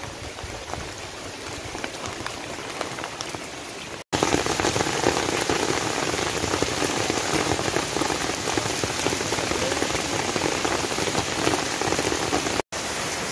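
Heavy rain falling steadily. After a cut about four seconds in it grows louder, with rainwater runoff rushing over gravel.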